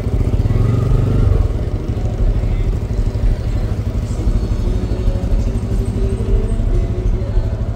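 A vehicle engine running in street traffic, a steady low sound with a fast, even pulse.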